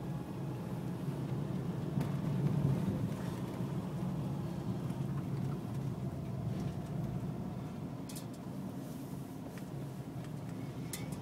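Car cabin noise while driving: a steady low rumble of engine and tyres on a paved road, swelling slightly a couple of seconds in, with a few faint clicks in the second half.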